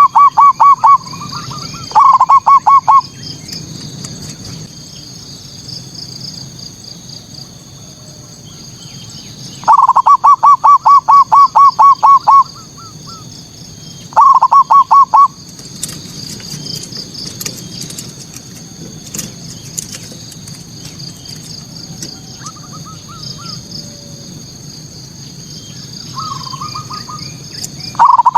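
Male zebra dove (perkutut) singing its staccato cooing song: loud runs of rapid coos, a short run at the start, another about two seconds in, a long run of about a dozen notes near ten seconds in and a short one around fourteen seconds, with fainter replies later. A steady high-pitched chirping goes on underneath.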